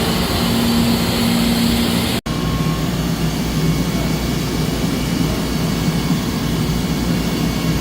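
Traub TNL 26 CNC Swiss lathe running a warm-up program: a steady machine hum with a held tone. The sound breaks off for an instant about two seconds in, then the hum goes on at a lower pitch.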